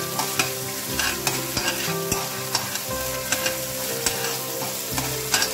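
Crushed ginger and garlic sizzling in hot olive oil in a stainless steel pan, being sautéed until lightly browned. A metal spoon stirs through them, clicking and scraping against the pan again and again.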